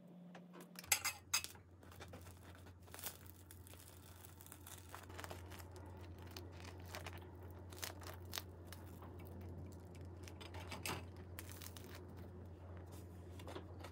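A crusty bagel being torn apart by hand, the crisp crust crackling in scattered short snaps, with a couple of sharp knocks about a second in. A steady low hum runs underneath.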